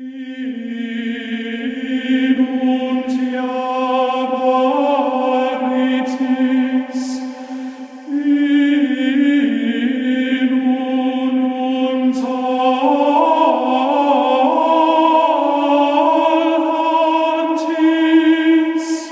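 Men's choir singing a slow Templar chant in long held notes, dipping briefly between phrases about eight seconds in.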